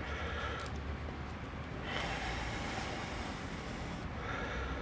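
A man breathing heavily, with one long hissing breath lasting about two seconds from about two seconds in.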